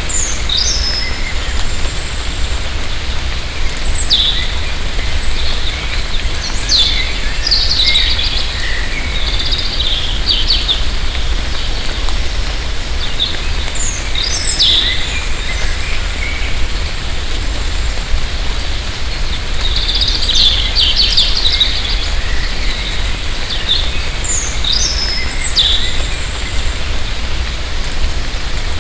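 Steady light rain falling in a forest, with birds calling now and then in short, high, falling chirps.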